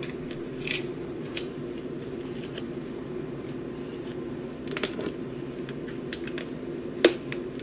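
Light scattered clicks and taps of a seasoning shaker being shaken over a foil pan, with one sharper click about seven seconds in, over a faint steady hum.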